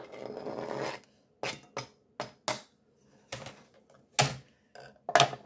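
A kitchen knife scrapes chopped pork off a plastic cutting board into a ceramic bowl for about a second, followed by about eight sharp, irregular clacks of knife, board and bowl knocking together.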